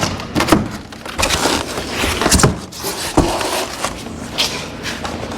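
Foam insulation panel being forced and rocked into the channel of a metal garage door: irregular scraping and rubbing with several sharp knocks.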